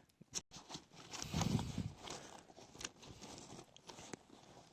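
Rustling and light knocks of a fabric bag being handled, loudest a little over a second in.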